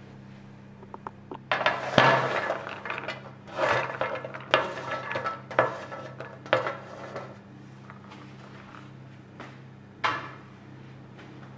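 Kitchen utensils and dishes clinking and clattering in a run of sharp knocks and scrapes lasting about five seconds, then one more knock near the end, over a faint steady hum.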